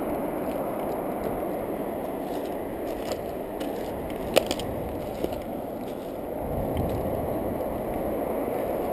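Muffled rustling and rubbing against a chest-mounted camera housing from a plastic-covered map and clothing being handled. A few sharp clicks fall in the middle, the loudest about four and a half seconds in.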